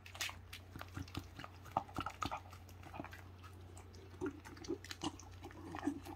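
A dachshund eating from a hand, chewing and licking, its mouth making many quick wet clicks and smacks.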